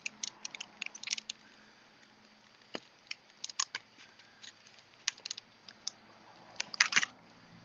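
Clear stamps and their plastic carrier sheet being handled: faint, scattered light clicks and crinkles, with a small cluster of clicks about seven seconds in.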